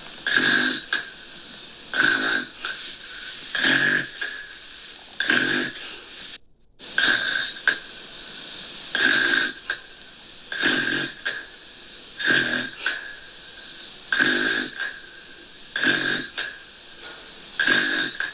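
Gentle snoring: a short rasping snore about every two seconds, each followed by a fainter second rasp. The sound drops out for an instant just after six seconds in.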